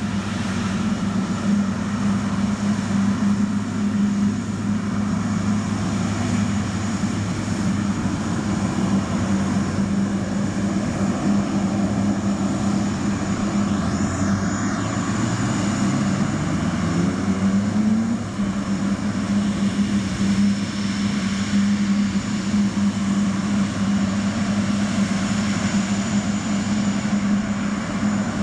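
Jet engines of a Boeing 777-200ER, General Electric GE90s, running at low power with a steady drone and a faint high whine. A tone rises in pitch about two-thirds of the way through.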